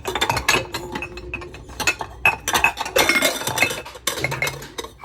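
Dishes and cups clinking and knocking against each other as they are handled, in a run of short sharp clinks.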